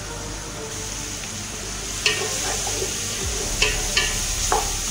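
Food sizzling and frying in a cooking pot while being stirred, with the stirring utensil knocking and scraping against the pot about four times in the second half.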